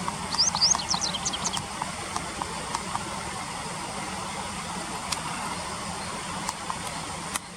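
Japanese wagtail calling: a quick series of short, high chirps, each rising in pitch, from about half a second to a second and a half in, over a steady background noise with faint scattered clicks.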